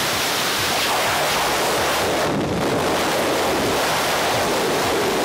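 Loud, steady wind rush buffeting a skydiver's camera microphone during a freefall skydive.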